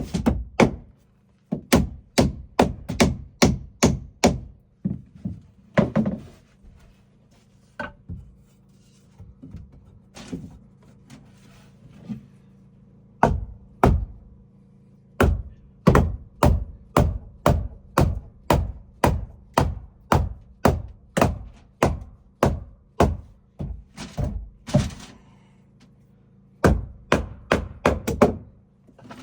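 Hammer blows on wood, struck in runs of about two a second with short pauses between the runs and a few lighter taps during them.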